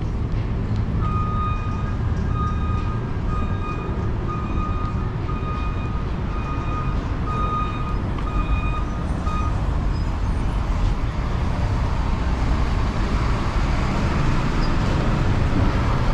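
City street traffic running steadily, with a high electronic beep repeating about a dozen times, evenly spaced, over the first nine seconds or so. Near the end the traffic gets louder, as with a vehicle passing.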